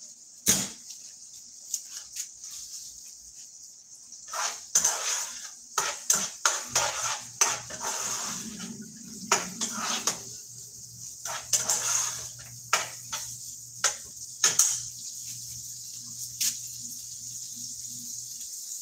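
Silicone spatula stirring and scraping in a frying pan of bacon, onion and bell pepper, with irregular knocks and scrapes against the pan over a steady sizzling hiss.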